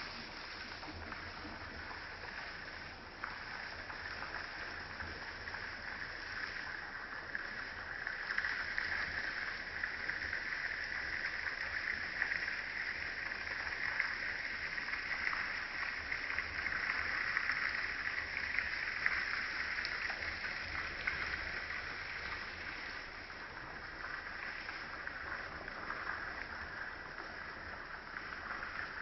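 Steady babbling and rippling of a shallow stream flowing over rocks, a little fuller in the middle stretch.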